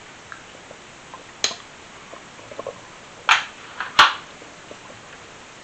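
Mouth sounds of a person eating and tasting food: a soft lip smack about a second and a half in, then two sharper smacks with a short breath, a little past three seconds and at four seconds.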